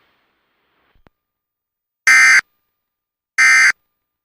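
Emergency Alert System end-of-message tones: short, harsh, buzzy bursts of SAME digital data, two of them about 1.3 seconds apart starting about two seconds in. They mark the end of the flash flood warning broadcast.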